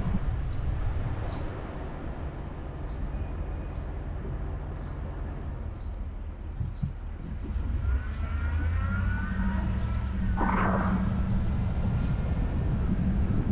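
Car driving slowly through town, with steady engine and tyre rumble. A faint regular ticking, about two a second, runs through the first half. The engine note rises about eight seconds in as the car picks up speed.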